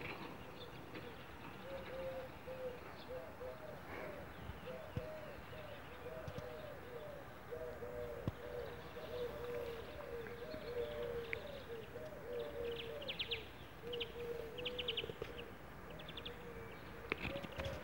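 Pigeons cooing in a long, steady series of low, repeated coos, with small birds chirping briefly in the background, mostly in the second half.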